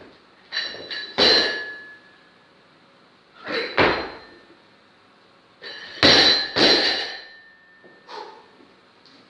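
Loaded Olympic barbell with bumper plates clanging as it is dropped to the platform and snatched: three bouts of sharp knocks, about a second in, near four seconds and at about six seconds, each followed by a metallic ring from the bar and plates.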